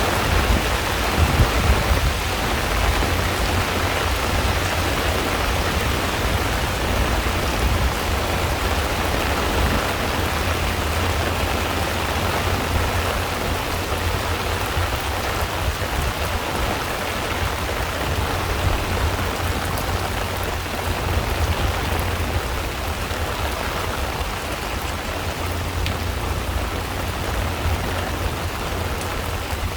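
Heavy rain falling steadily on a pond's surface: a dense, even patter with a steady low rumble underneath.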